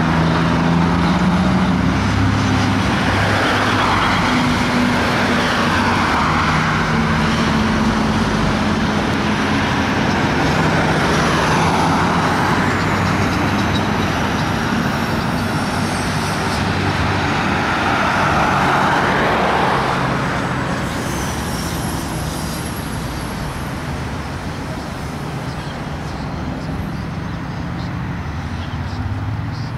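Road traffic passing: a B-double truck's diesel engine drones steadily, and tyre noise swells and fades three times as vehicles go by. The sound drops off after about twenty seconds as the traffic moves away.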